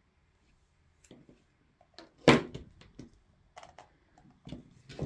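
Scissors snipping a soft modelling-clay ear, with short clicks and knocks of handling on a tabletop; the loudest is a single sharp knock a little over two seconds in.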